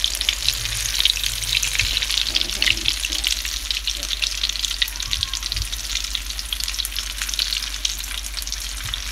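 Egg-battered potato and cheese fritters deep-frying in oil that the cook thinks is very hot: a steady, dense crackling sizzle.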